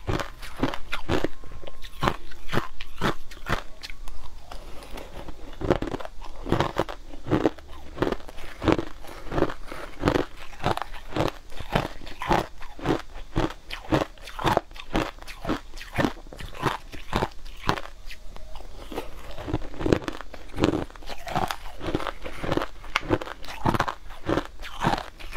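Purple-tinted crushed ice being chewed, in rapid, close-up crunches, about two or three a second.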